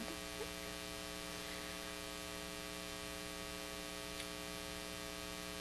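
Steady electrical mains hum with hiss in the audio system, a stack of even, unchanging tones; a faint click about four seconds in.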